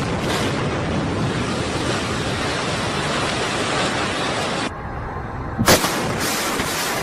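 A loud, steady noisy rumble of demolition: a building collapsing, with debris and wind on the microphone. The noise thins out near five seconds in, then a single sharp bang, like a blast charge going off, comes about a second later.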